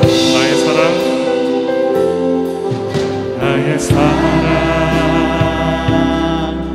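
Live gospel worship music: a group of voices singing together over sustained instrumental accompaniment.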